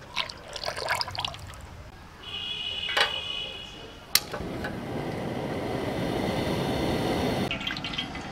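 Cooking oil poured into an iron kadai, splashing and trickling. Then gas hisses at the burner beneath it, a sharp pop about four seconds in as it lights, and the flame keeps up a steady rushing until it cuts off suddenly near the end.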